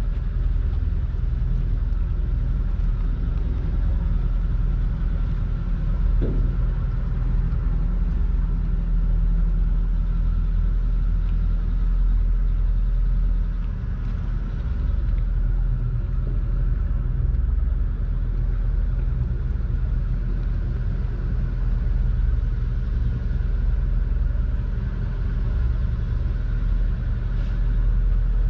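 Boat engine running steadily: an even, low rumble with no change in speed.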